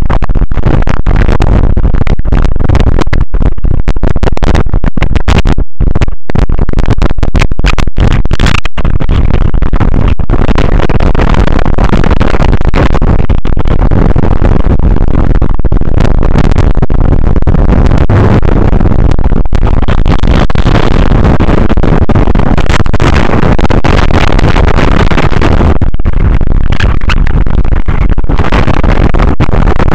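Strong wind buffeting the microphone: a continuous, heavily distorted rumble with many brief dropouts in the first few seconds.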